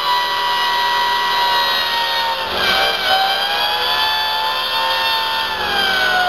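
3D-printed PLA model turbine engine spun up by compressed air from a blow-gun nozzle: a high, steady rotor whine over the hiss of the air jet. The whine wavers and dips about two and a half seconds in, then slides steadily lower near the end as the rotor slows.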